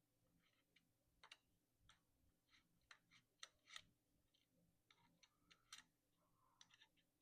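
Near silence with faint, irregular small clicks and ticks of bike parts and tools being handled during handlebar and stem work.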